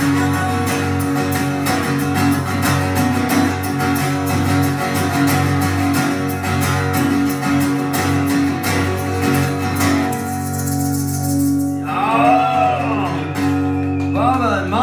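Acoustic guitar strummed live with a steady rhythm; the strumming stops about ten seconds in and the last chord rings on, with a voice coming in near the end.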